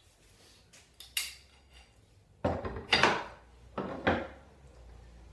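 Metal bar clamps clanking and clattering as they are handled and set across a clamped wooden glue-up: a sharp click about a second in, then two rattling bursts in the second half.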